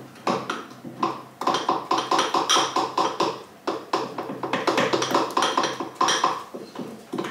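Quick, irregular taps and clicks of kitchen utensils against a bowl and dishes on the counter, several a second.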